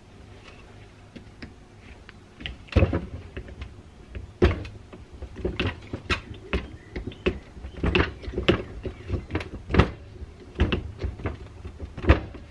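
Irregular metal clicks and clunks from a Cross double-spool hydraulic control valve being handled and worked by hand, its levers and spool parts knocking against the valve body. The knocks start about two and a half seconds in and go on at one or two a second, a few of them sharper than the rest.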